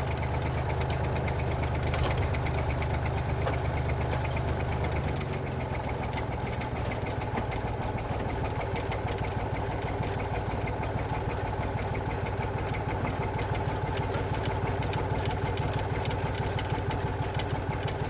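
Narrow-gauge diesel locomotive engine running steadily as the train creeps to the end of the track, with one sharp click about two seconds in. The deep engine hum eases off about five seconds in as the train slows.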